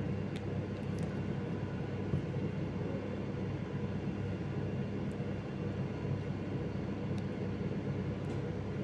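A steady low mechanical hum that does not change, with a few faint light clicks scattered through it.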